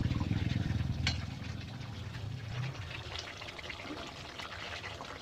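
Chicken cooking in a pot over a gas flame, sizzling and bubbling with small crackles as it finishes cooking. A low rumble fades out over the first second and a half.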